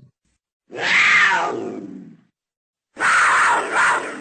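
Leopard giving two loud, harsh calls. The first comes about a second in, falls in pitch and fades; the second starts near the end.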